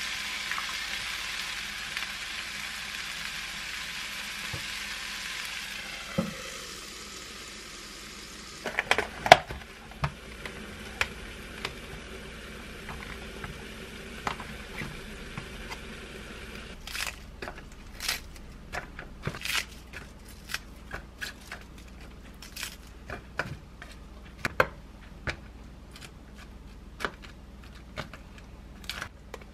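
Cabbage and egg frying in a pan, an even sizzle that fades out about six seconds in. After that come many light taps and clicks of cherry tomatoes and a plastic lunch box being handled on a counter.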